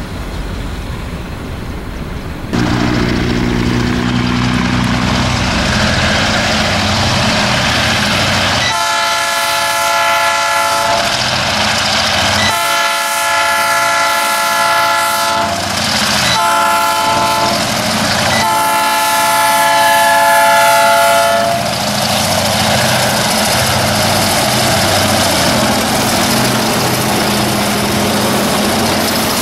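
Diesel freight locomotive's multi-note air horn sounding four blasts, long, long, short, long, the signal for a level crossing ahead. Its engines then run steady and loud as the locomotives pass close by.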